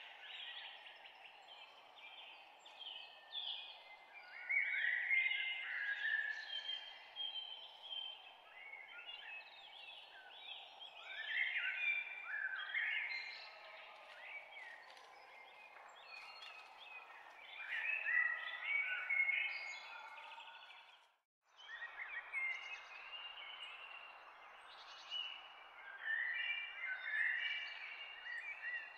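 A dense chorus of many small birds chirping at once, short calls sliding up and down in pitch, over a steady hiss. The sound cuts out completely for about half a second some two-thirds of the way through.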